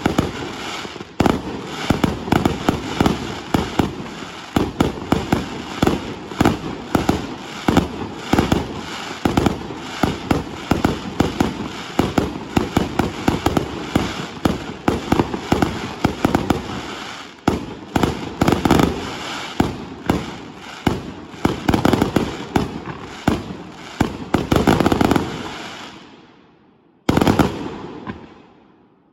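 Fireworks display: a rapid, unbroken barrage of bangs and crackles, several a second, that dies away about 26 seconds in. One last bang comes near the end and fades out.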